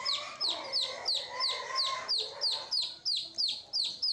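Domestic chicks peeping steadily, about three high peeps a second, each falling in pitch. A lower, wavering call sounds underneath them for the first two and a half seconds.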